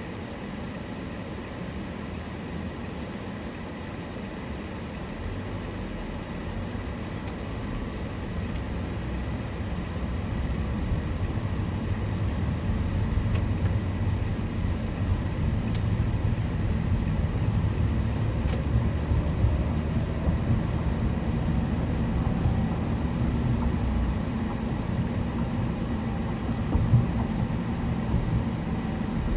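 A car driving, with a steady low rumble of engine and road noise that grows louder over the first ten seconds or so and then holds. There is a short thump near the end.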